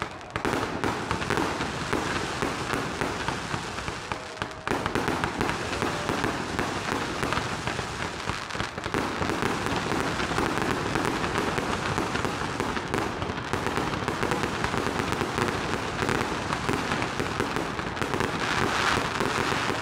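Consumer multi-shot firework battery going off in rapid succession: shots launching from the ground and bursting overhead, with a dense, continuous run of pops and crackles.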